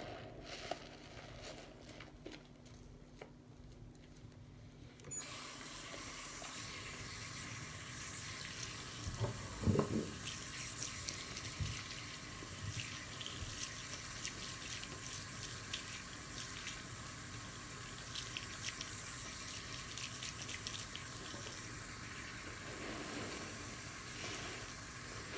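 A soap-soaked sponge squished and squeezed in a foamy sink, with wet squelches and popping suds. About five seconds in, the tap starts running and the sponge is rinsed and squeezed under the steady stream. A louder squelch comes about ten seconds in.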